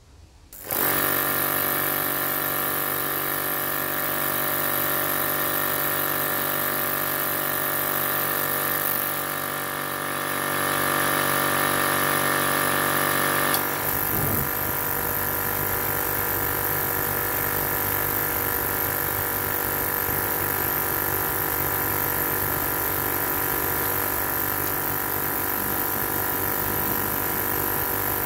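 Bairan STW120P waste-oil burner starting up: its blower motor and air pump come on suddenly and run with a steady hum. About halfway through the sound changes: part of the hum drops away and a low rumble comes in, and it then runs steadily. The owner holds the burner's air pump and controller to be faulty.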